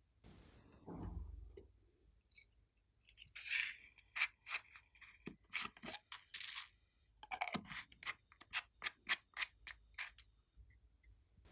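Clear slime being worked by hand, giving a run of short, sharp pops and clicks, about two or three a second, after a low soft handling sound near the start.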